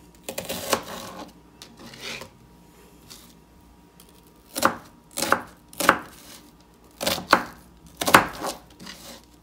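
Kitchen knife chopping on a cutting board: a few strokes at the start, a short pause, then a run of spaced, separate strikes through the second half.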